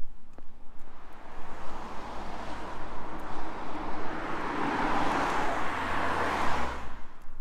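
A car driving past close by: tyre and engine noise building over several seconds to a peak, then cutting off suddenly near the end.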